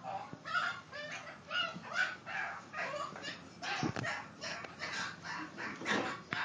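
A dog yelping and barking in short, repeated cries while it is being hit.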